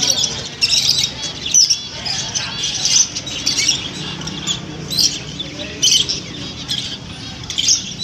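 A crowd of caged zebra finches and budgerigars chirping and chattering together, many short high-pitched calls overlapping without pause.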